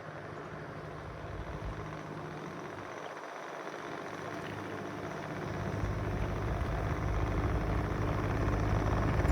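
Case TR310B compact track loader's diesel engine running steadily, growing louder through the second half.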